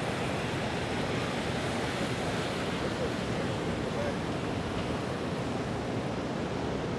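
Steady wash of noise from a rainy city street: rain and tyres hissing on wet pavement, with no single event standing out.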